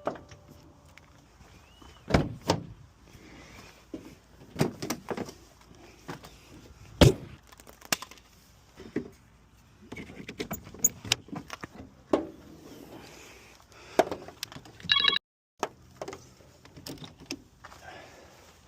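Car keys jangling and clicking as they are handled, with scattered knocks and thunks around a car interior. A short electronic beep sounds about three-quarters of the way through.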